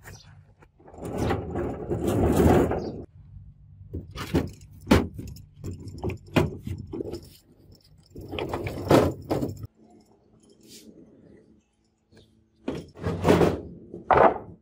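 Handling noise from a heavy old steel anvil being moved about: bursts of scraping and rattling, with a run of sharp metallic clinks in the middle.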